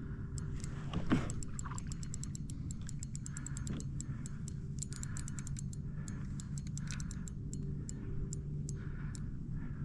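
Spinning reel's drag clicking as a big fish pulls line. The ticks come irregularly, in fast runs, over a steady low rumble, with one louder swish about a second in.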